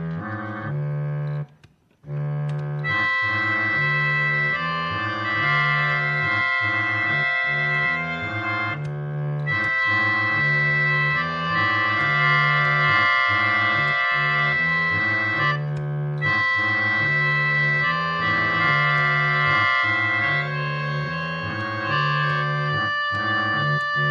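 Organ music: sustained chords over a repeating bass figure. The playing breaks off briefly about a second and a half in, then runs on steadily.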